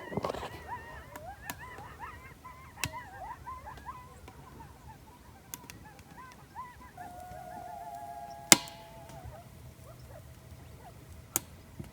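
A pack of coyotes yipping and howling close by: many short rising-and-falling yips overlap, then one long steady howl starts about seven seconds in. A few sharp cracks cut through, the loudest about eight and a half seconds in.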